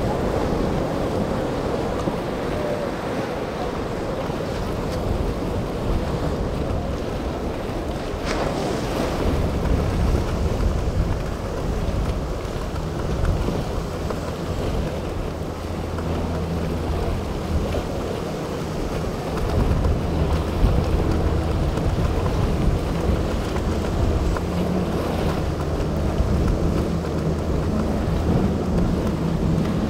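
Waves breaking and surf washing, with wind buffeting the microphone, over the low drone of boat engines running through rough water; the engine drone is strongest in the second half.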